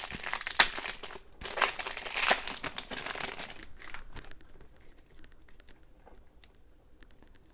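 Trading card pack wrapper being torn open and crinkled for about three and a half seconds, then fainter rustling and clicks as the cards are handled.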